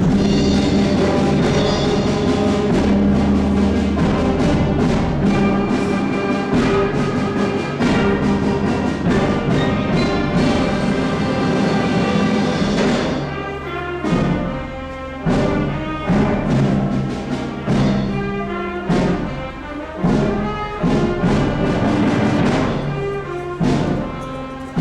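Orchestral music with brass and timpani, starting suddenly at full level. About halfway through it breaks into a series of separate loud chords with short gaps between them.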